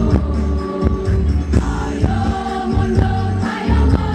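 Women's choir singing in parts, accompanied by music with a heavy bass line and a beat.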